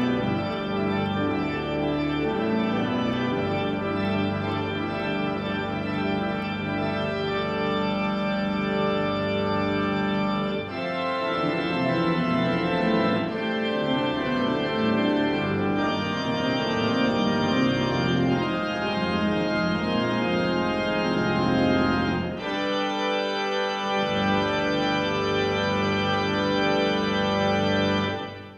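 Church organ played on its keyboards and pedals: full sustained chords over a deep bass line, changing every few seconds. The sound drops away abruptly at the very end.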